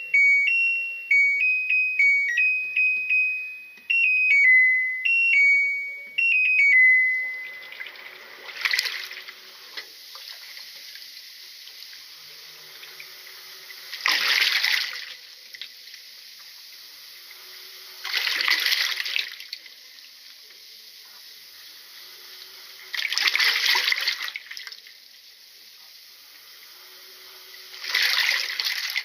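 Washing machine's electronic chime playing a short tune of beeps. Then water runs into the tub with a steady trickle, swelling into louder splashing surges five times, about every five seconds.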